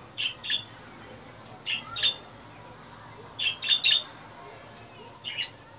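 Budgerigars giving short, sharp chirping calls in quick clusters of two or three, a cluster every second and a half or so.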